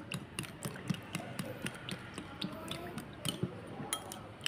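Metal spoon stirring a liquid sauce in a small ceramic bowl, clinking lightly against the bowl's side and bottom several times a second in an uneven rhythm.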